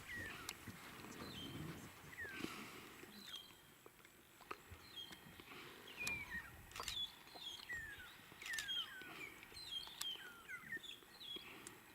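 Birds calling in the bush: many short, faint whistled notes, each sliding down in pitch, repeated over and over, with a few sharp clicks scattered among them.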